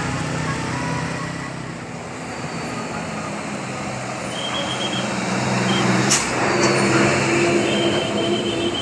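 Large bus with its engine running as it passes, louder in the middle. A short sharp hiss of air, typical of air brakes, comes about six seconds in.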